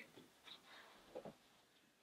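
Near silence: room tone with a couple of faint, brief handling sounds.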